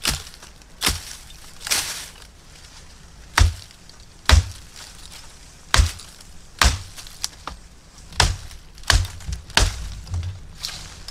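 Bamboo stems being chopped through at the base with a blade: about ten sharp chops at irregular intervals.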